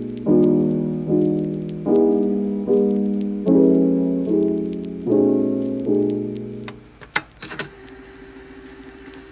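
Soft background piano music: a chord struck about every eight-tenths of a second and left to ring. The music stops about seven seconds in, followed by a couple of sharp clicks and a faint held tone.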